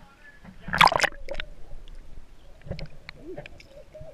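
A swimmer jumps from a rock ledge into a cave pool and hits the water with a loud splash about a second in, followed by water sloshing and gurgling around the camera.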